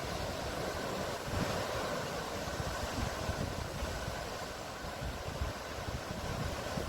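Sea waves: a steady wash of surf, with low gusts of wind rumbling on the microphone.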